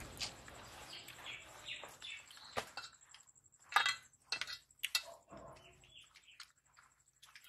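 Fingers mixing and scooping rice on steel plates, giving scattered light clicks and scrapes, the sharpest about halfway through, while small birds chirp in the background.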